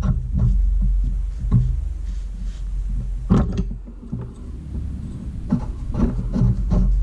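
Ball joint press being worked by hand to force a ball joint into an upper control arm: a run of irregular metal clicks and knocks over a steady low hum.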